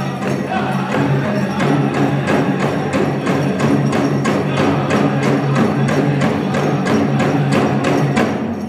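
Powwow drum group playing a chicken dance song: a big drum struck in a steady, even beat under the singers' held voices. The drumming and singing stop near the end.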